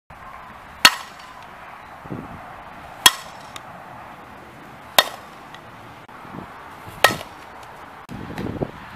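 Fastpitch softball bat striking a softball four times, about two seconds apart, each a sharp crack with a short ring.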